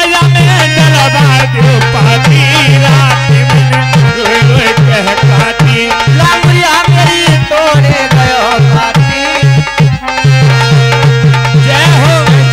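Live Languriya folk music played loudly: a fast, steady dholak-style drum beat under a wavering keyboard melody. The deep beat drops out for a few seconds in the middle and then comes back.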